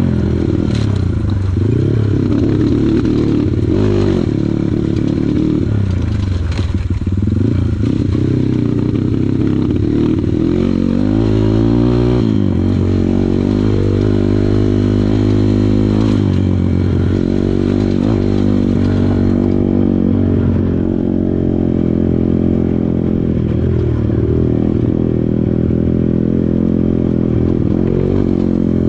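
Kawasaki KLX140 trail bike's single-cylinder four-stroke engine running under load, its pitch rising and falling again and again as the throttle is worked, with a few sharp knocks and clatter.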